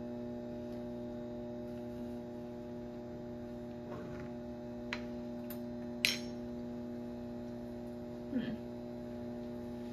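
Steady electrical hum, with a few light clicks and clinks over it, the sharpest about six seconds in.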